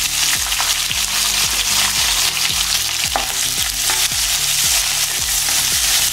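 Chopped small onions and curry leaves sizzling in hot sesame oil in a nonstick kadai, a steady frying hiss, with a wooden spatula stirring them through the oil.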